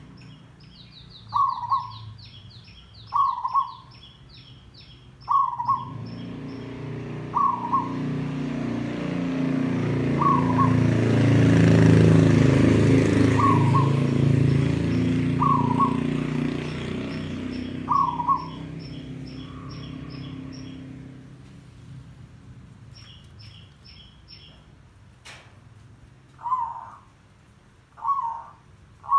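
Zebra dove (merbok) giving short cooing calls about every two seconds. The calls pause for several seconds, then come back faster near the end as the bird bows in its territorial display. Small birds chirp high in the background, and a low rumbling noise swells and fades through the middle, louder than the calls.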